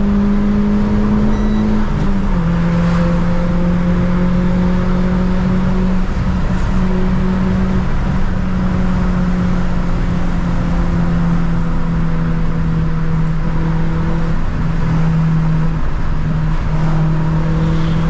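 Renault Sandero RS's 2.0-litre four-cylinder engine droning steadily inside the cabin at cruise, with road and tyre noise under it. Its pitch drops slightly about two seconds in and then holds steady.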